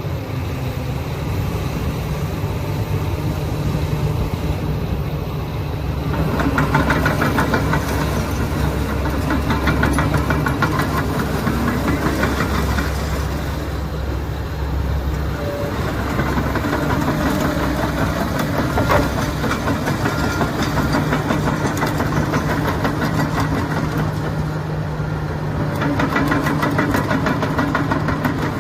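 Komatsu PC360LCi-11 excavator's six-cylinder diesel engine running steadily. It grows louder under load from about six seconds in and again later on, with a fast rattle over the engine note during the louder stretches.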